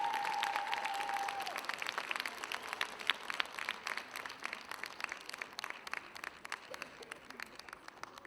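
Audience applauding, the claps thinning out and fading away toward the end. A single held tone dies away about a second and a half in.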